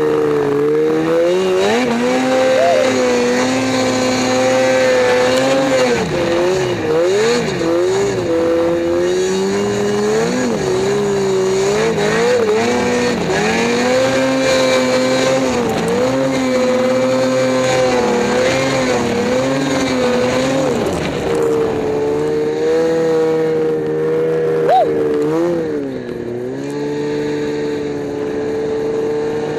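Snowmobile engine running as it rides through powder, its pitch holding steady, then dipping and climbing back several times as the throttle is eased off and opened again. It runs a little lower and quieter near the end.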